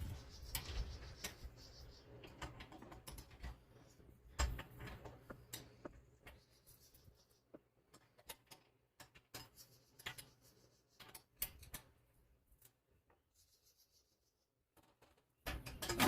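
Faint, scattered clicks and knocks of hand tools on metal as the new tiller engine is fastened down, thinning out to near silence near the end.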